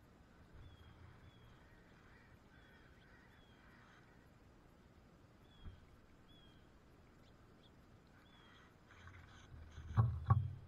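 Faint, high, short slurred bird calls repeating every second or so. Near the end come two sharp knocks on the wooden feeder about a third of a second apart, as a bird lands and clings to its side.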